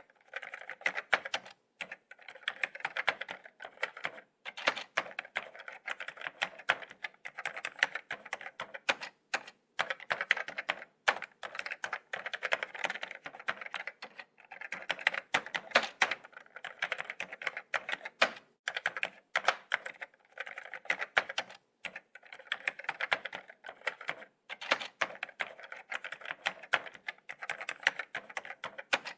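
Laptop keyboard being typed on: fast, irregular runs of light key clicks, broken by short pauses every second or two.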